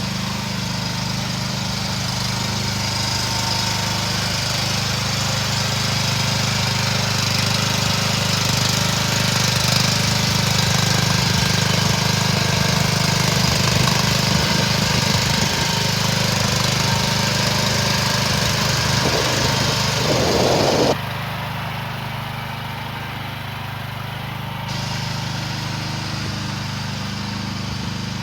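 AGT QH13R mini excavator's Rato gasoline engine running steadily. About three quarters through, the sound turns abruptly quieter and duller.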